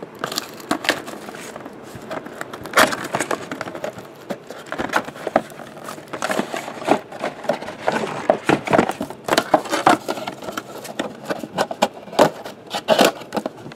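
Cardboard trading-card box being handled and unpacked: irregular scrapes, taps and rustles as the inner card boxes are slid out and set down on the table.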